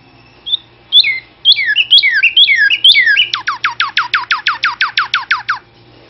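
Male northern cardinal singing loud, clear whistles: a few slurred notes, then repeated two-part phrases sliding down in pitch, breaking into a fast run of short downward-slurred notes, about nine a second, that stops near the end.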